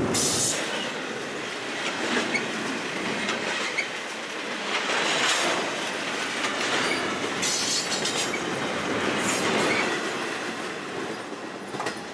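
Double-stack intermodal freight train rolling past: steady wheel-on-rail noise with clicks of wheels over rail joints and a few brief high squeals. The noise fades near the end as the last car goes by.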